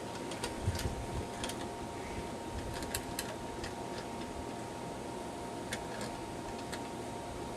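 Rotary telephone dial being turned by hand and spinning back, giving clusters of light mechanical clicks.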